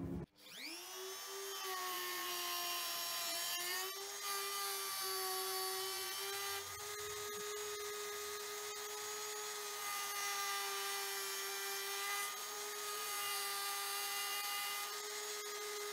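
Rotary tool with a small grinding stone spinning up about half a second in, then running with a steady high whine while the stone grinds the flutes of a steel end mill held in the lathe chuck, a light rasp of stone on metal over the motor.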